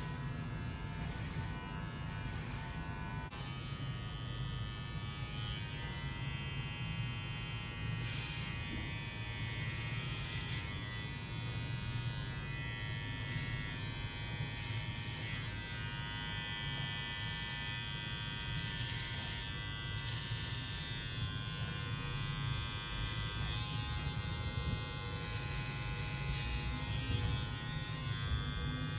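Electric hair clippers running with a steady buzz as they cut a low fade, the pitch wavering slightly as the blade moves through the hair.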